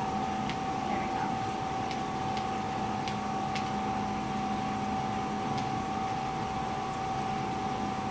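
Steady hum of laboratory ventilation or equipment with a constant tone. Over it come about half a dozen light metallic clicks as a brass hydrogen regulator's nut is turned by hand onto a gas cylinder valve.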